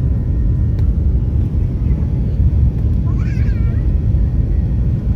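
Steady low rumble, with a brief high, wavering squeal-like voice about three seconds in.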